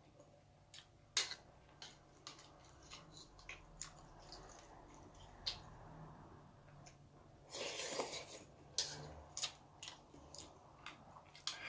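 Eating sounds: chewing with many small sharp clicks and taps of a spoon or chopsticks against a dish, with a louder burst of eating noise about eight seconds in.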